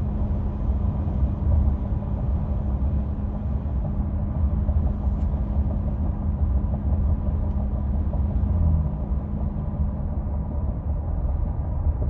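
2016 Ford F-150 5.0 V8 pickup driving at highway speed: a steady low rumble with a humming tone over it that fades out about ten seconds in. This is the hum that comes on at 60 mph under throttle and stops when coasting down to 55 mph.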